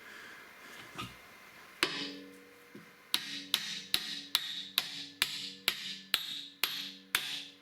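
Hammer striking steel: a single blow about two seconds in, then a steady run of blows about two a second. Each blow leaves a ringing metallic tone.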